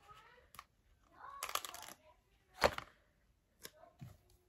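Paper sticker sheet rustling as a sticker is handled, then one sharp plastic snap from the talking button's clear cover, followed by a couple of light clicks.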